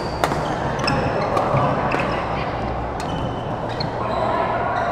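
Badminton rally: rackets striking a shuttlecock in several sharp hits about a second apart, with short squeaks of court shoes on the floor and background chatter.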